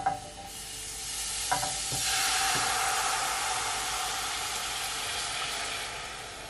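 Cola barbecue sauce poured from a glass bowl into a heated ceramic-coated frying pan, sizzling as it spreads over the hot surface. A short knock at the start, then the sizzle builds over the first two seconds and eases off toward the end.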